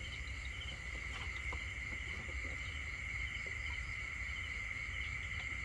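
Night insects chirring in a steady, unbroken high-pitched chorus, with a low rumble underneath.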